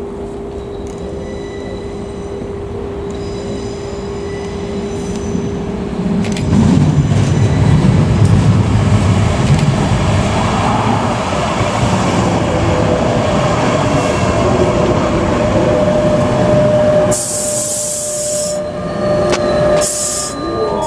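Sheffield Supertram tram approaching and drawing up close by. A steady whine and a rumble on the rails grow much louder about six seconds in. Near the end come two short bursts of hiss.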